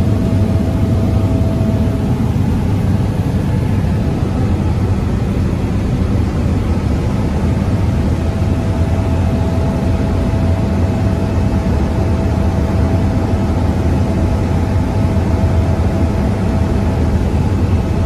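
Skydiving jump plane's engine and propeller running steadily, a loud low drone heard from inside the cabin.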